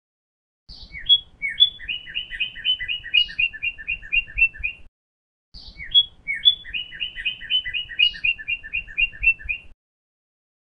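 A songbird's song phrase, heard twice the same way: a few separate opening notes, then a fast run of about four to five paired chirps a second, each phrase lasting about four seconds.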